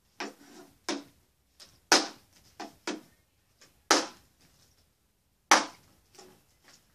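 Plastic water bottle being flipped and knocking down on a wooden dresser top: a run of sharp knocks, three of them loud (about two, four and five and a half seconds in), with smaller knocks between as it tips over and is picked up and set down.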